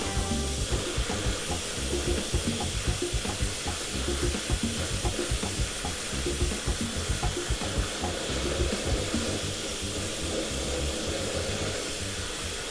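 Torch flame hissing steadily with a fluttering low rumble, heating a dented two-stroke expansion chamber that is held at about 40 psi of air from inside so the dent pushes out.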